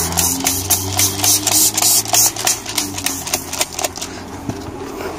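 Rapid rhythmic scrubbing strokes on a BMW M3 CSL's Alcantara steering wheel, about four a second, dying away about four seconds in, over a low hum.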